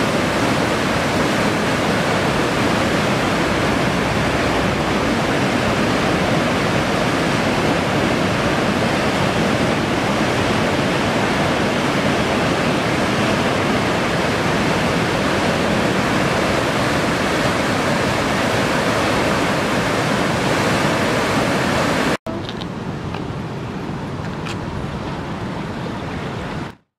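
Whitewater rapids rushing through a narrow rock channel: a loud, steady roar of water. Near the end it cuts abruptly to a much quieter steady background, which then stops.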